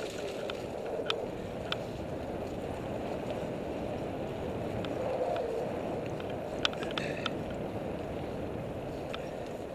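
Mountain bike rolling along a dirt trail: a steady rushing of tyres on dirt and leaf litter, mixed with wind on the microphone. Scattered sharp ticks and rattles from stones and the bike come through now and then, a cluster of them near the middle.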